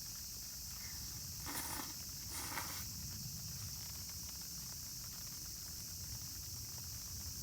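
Insects chirring steadily, high-pitched, over a low outdoor rumble, with two short rustling noises about one and a half and two and a half seconds in.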